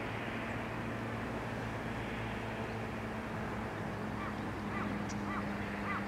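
A few short waterbird calls from about two-thirds of the way in, each a brief note that bends up and down in pitch. They sound over a steady low hum.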